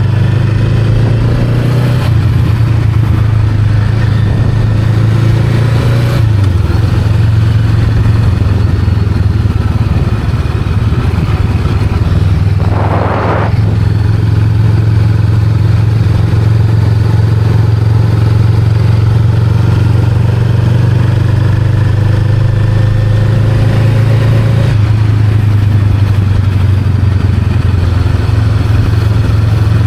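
Honda Rebel 500's 471 cc parallel-twin engine running steadily on the move, with a few small changes in the engine note as the rider shifts and throttles. About 13 s in there is a brief rush of noise.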